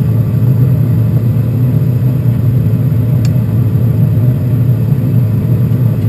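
Steady low rumble of a gas water heater's venting blower running ahead of ignition, with one faint click about three seconds in.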